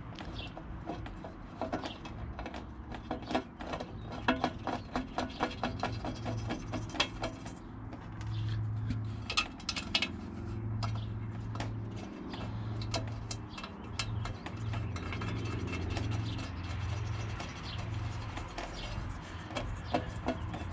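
Hand socket ratchet clicking in quick runs as bolts are run in and tightened, with a low steady hum underneath from about the middle on.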